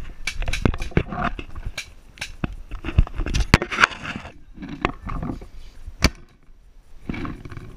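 Irregular sharp knocks, scuffs and rustling from moving on foot through brush on a rough slope while holding the camera in hand, with handling bumps against the paintball marker. It goes quiet for a moment near the end.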